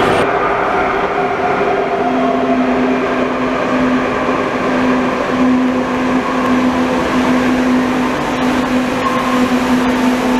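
Madrid Metro train pulling into an underground station platform, running noise coming in from the tunnel. A whine falls in pitch over the first few seconds, and a steady hum joins about two seconds in.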